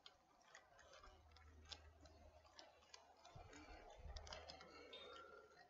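Faint running sound of a Bachmann Big Hauler G-scale model train on its track: a low motor hum that swells twice, with scattered light clicks from the wheels on the rails.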